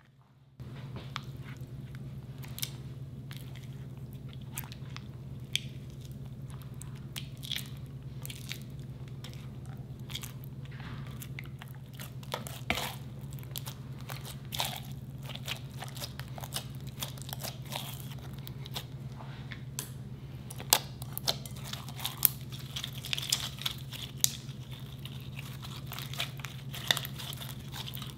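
Sticky glue slime being mixed in a glass bowl, stirred with a silicone spatula and worked by hand, making irregular wet clicks, crackles and squelches. A steady low hum runs underneath.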